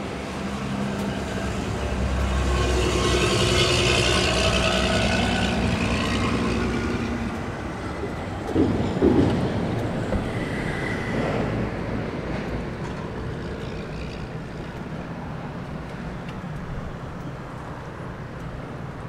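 An engine passing close by, its hum and hiss swelling over the first few seconds and then fading away. A brief sliding squeal about nine seconds in is the loudest moment.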